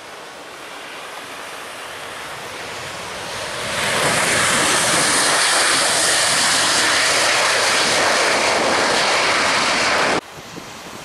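Garuda Indonesia Boeing 737's twin jet engines running at high power on the runway. The roar builds over the first few seconds, holds loud and steady, then stops abruptly at an edit about ten seconds in.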